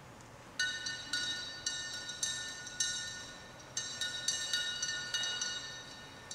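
Repeated bright clinks of a utensil against a large glass jar of oil as the oil is stirred, about two a second and unevenly spaced. Each clink rings briefly with the same high tones.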